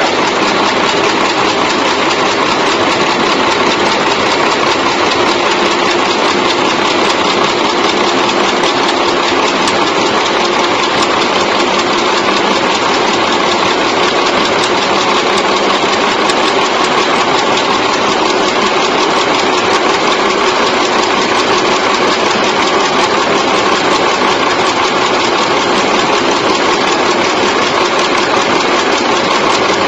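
Automatic chewing gum machine running steadily: a loud, continuous mechanical noise that does not stop or change.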